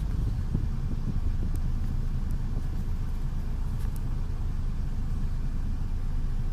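Steady low rumble of a vehicle travelling along a road.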